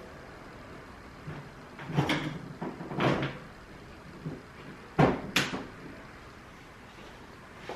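A few sharp knocks and clicks of bumper panels and fasteners being clicked back into place on a car, the loudest about five seconds in.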